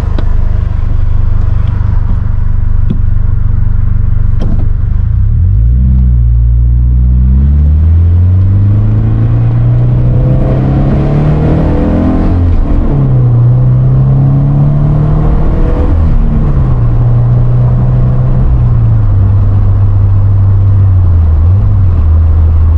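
Flat-four engine of a BRZ/FR-S/86 sports coupe with a manual gearbox, heard from inside the cabin. It runs steadily at first, then revs climb for several seconds as the car pulls away. The pitch drops at an upshift and steps down twice more at further shifts before settling to a steady cruise.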